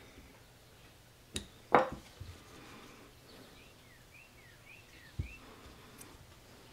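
Metal clicks and knocks from the aluminium carburetors being handled and set down on a bench: a sharp click about a second and a half in, a louder knock just after it, and a dull thump near the end.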